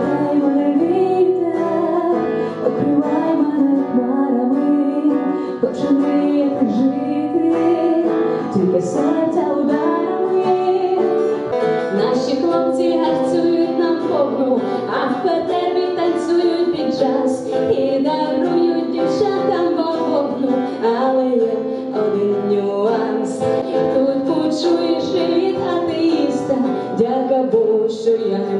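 A woman singing a song while accompanying herself on a steel-string acoustic guitar.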